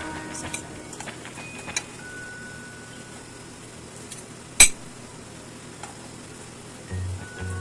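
Metal spoon clinking and scraping against a stainless steel cooking pot while scooping rice out, with a few light clicks early on and one sharp, loud clink about halfway through.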